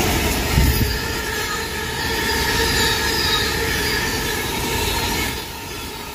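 Freightliner Class 66 diesel-electric locomotive, its EMD two-stroke V12 engine, passing close by, loudest about half a second in. It is followed by a train of bogie hopper wagons rumbling over the rails with a thin, steady wheel squeal, easing off a little near the end.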